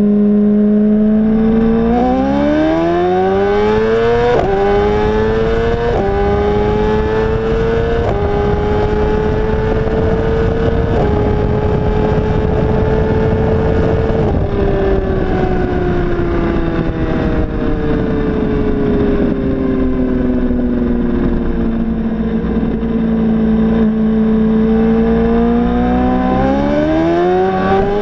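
ECU-tuned 2016 BMW S1000RR inline-four at full throttle, revs climbing through four quick upshifts, each a sudden drop in pitch, then holding high before the throttle is rolled off and the revs wind down over several seconds. Near the end it pulls hard again with another shift. Wind rushes over the bike-mounted camera throughout.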